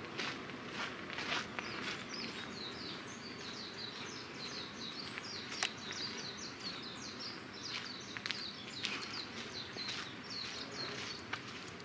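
Footsteps on a gravel path. A small bird sings a long, fast run of short high chirps from about two seconds in until near the end.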